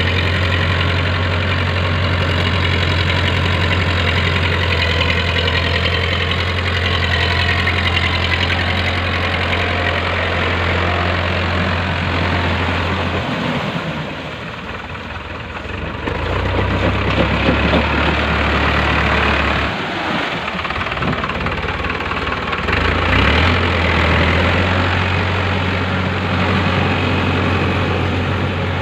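Powertrac Euro 55 tractor's diesel engine running steadily under load as it drives a rotavator through a flooded paddy, with a broad wash from the blades churning mud and water. About halfway through, the engine note drops and shifts for a few seconds, then settles again.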